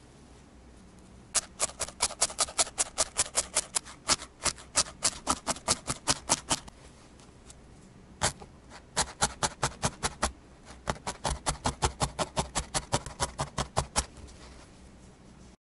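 Felting needle stabbing repeatedly through wool into burlap: quick, crisp pokes about five or six a second. They come in three runs with short pauses between.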